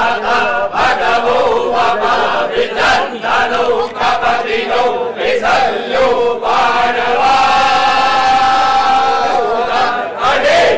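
A group of men chanting mantras together, with a long held tone from about six and a half to ten seconds in.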